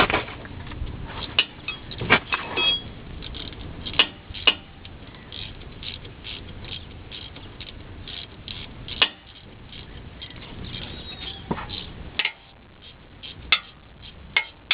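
Metal hand tools and parts clinking and knocking against each other in a string of sharp, irregular clanks during front CV axle and hub reassembly.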